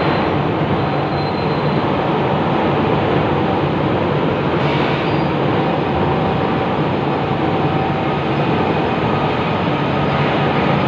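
Train running along the track: a steady, loud rumble of wheels on rails that keeps on without a break.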